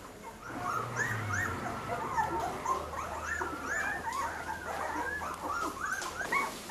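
A litter of young Dalmatian puppies whimpering and squeaking: many short rising-and-falling cries overlapping one another, starting about half a second in.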